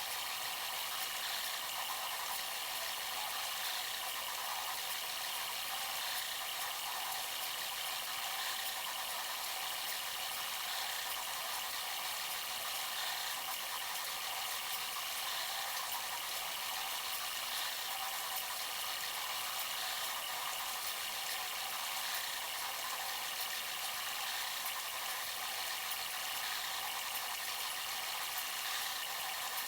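Bambu Lab A1 3D printer running mid-print: a steady whir of its fans and stepper motors with faint rattling ticks.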